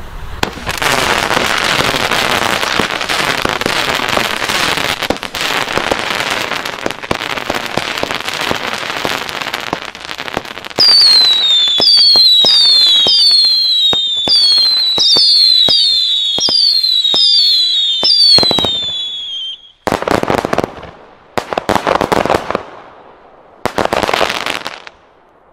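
Weco Matrix 54-shot, 15 mm fan battery firing. It starts with about ten seconds of rapid shots, then a string of about a dozen falling whistles sounds over the shots. Near the end the finale fires as three loud volleys.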